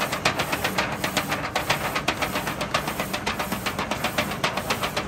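Direct-to-film printer's powder-shaker unit running: a fast, even rattle of about seven clicks a second over a steady hum, as the printed PET film is shaken through the white hot-melt powder.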